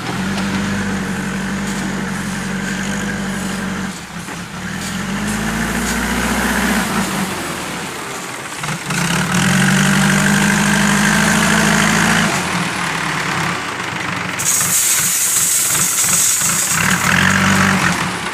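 JCB backhoe loader's diesel engine running and revving up and down as the front bucket digs into and lifts crushed gravel. A high hiss joins in for a few seconds near the end.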